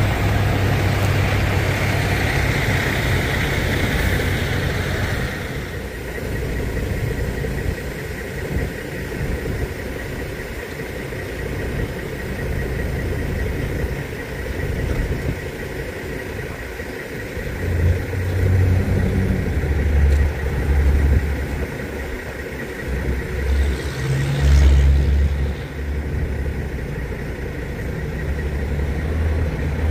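Heavy wrecker's diesel engine running under hydraulic load as its boom lifts and lowers a semi tractor; the low engine note swells and eases several times, loudest about 24 seconds in. A broad hiss fades out about five seconds in, and a short hiss comes about 24 seconds in.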